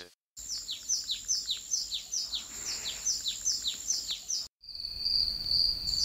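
A bird chirping, repeating quick downward-sliding chirps about three or four times a second over a steady high-pitched tone. The sound cuts out for a moment a little past the middle, then the chirping and a steady tone start again.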